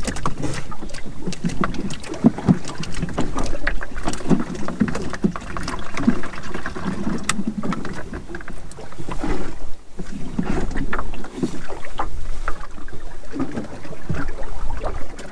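Water slapping and sloshing against the hull of a small open boat drifting with the engine off, with wind on the microphone and scattered sharp knocks from gear in the boat.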